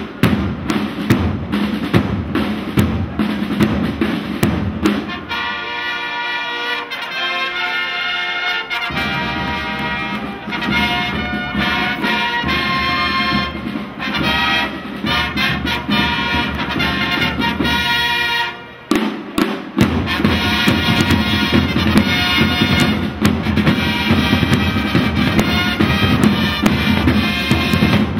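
Flag-throwers' band of trumpets and drums playing a march. The drums beat at the start, drop out about five seconds in while the trumpets hold long notes alone, then come back in; after a short break about two-thirds through, drums and trumpets play on together.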